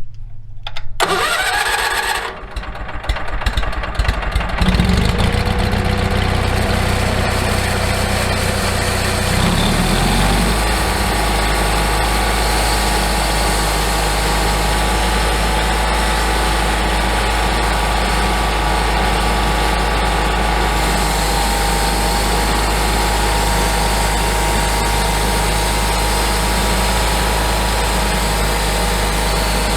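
Homemade sawmill's engine being started: it catches briefly and dies about two seconds in, starts again a couple of seconds later, then revs up about ten seconds in and runs steadily.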